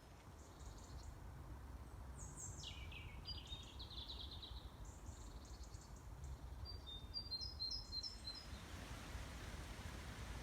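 Small woodland songbirds singing. One trilled phrase falls in pitch a couple of seconds in, and a run of short high notes follows a few seconds later, over a low steady rumble.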